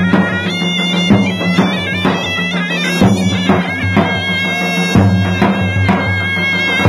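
A zurna-type double-reed pipe plays a shrill, ornamented folk melody over a steady low drone, with a large double-headed bass drum beating underneath.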